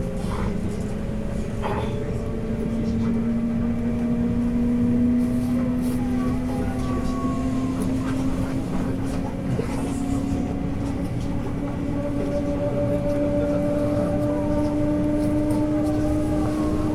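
JR West 221 series electric multiple unit heard from inside a motor car: the whine of its inverter-driven traction motors rises slowly and steadily in pitch as the train gathers speed, over a steady rumble of wheels on the rails.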